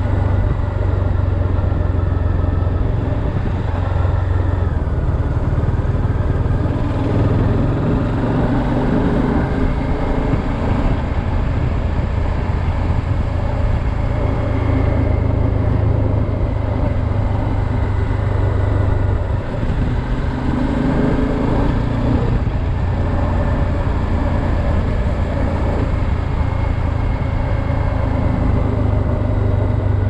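Bajaj Dominar 400's single-cylinder engine running under way, with wind and road noise. Its note shifts a few times as the revs change.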